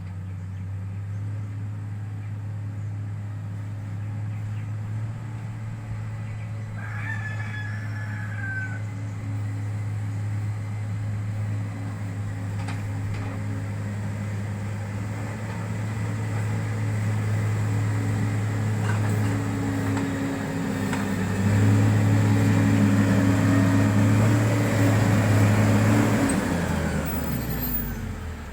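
Diesel engine of road-construction heavy equipment running steadily, getting louder about two-thirds through and then dropping in speed near the end. A rooster crows once about seven seconds in.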